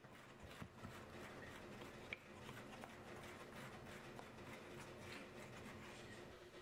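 Faint scraping and light ticking of a small metal tool working small clay pieces, with one sharper click about two seconds in.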